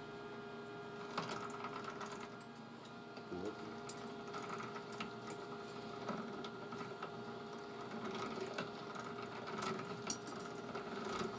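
Small electric motor running steadily with an even hum, turning a drill chuck that spins a knitting needle while fine copper wire winds tightly onto it, with faint scattered ticks of the wire.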